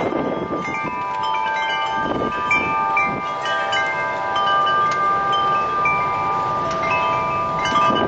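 Wind chimes ringing in gusty wind: many clear tones at scattered pitches, struck at random and overlapping as they ring on. Wind rumbles on the microphone underneath, stronger near the start and end.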